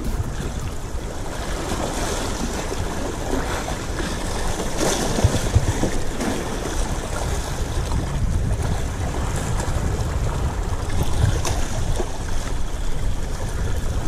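Wind buffeting the microphone with a low, uneven rumble, over the steady wash of sea waves.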